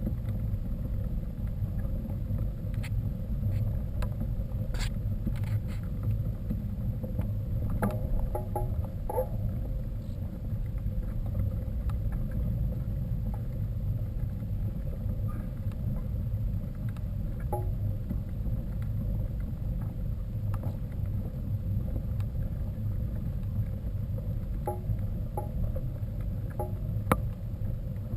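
Steady low rumble of wind buffeting and tyre noise from a mountain bike on the move, with scattered short clicks and rattles.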